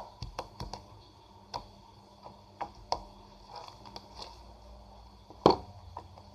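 Sticky homemade slime being squeezed and pulled by hand, giving irregular sharp clicks and pops. The loudest pop comes about five and a half seconds in.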